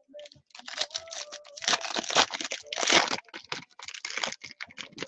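A foil trading-card pack wrapper and plastic card sleeves crinkling and tearing under the hands, a quick irregular crackle that is loudest in the middle.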